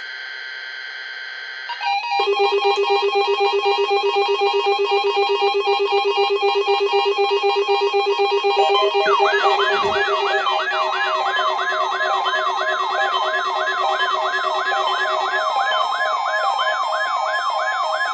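Weather radio receivers set off by a NOAA Weather Radio test, alarming together. A high tone gives way about two seconds in to several overlapping beeping alert tones. About nine seconds in, a fast warbling siren-like alert joins them.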